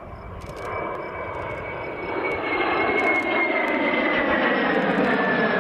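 Aircraft engine drone, building in loudness over the first few seconds and then holding steady, with a high whine that slowly falls in pitch, as a plane passes.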